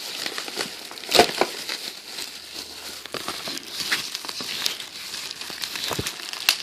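Packaging crinkling and crackling as it is handled and pulled open, with a few sharp snaps, the loudest about a second in.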